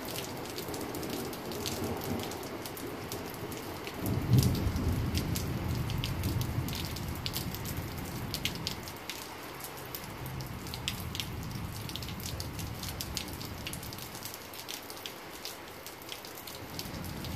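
Steady rain falling, with close drops ticking on nearby surfaces. A low rumble of thunder rises sharply about four seconds in and rolls away over the next few seconds.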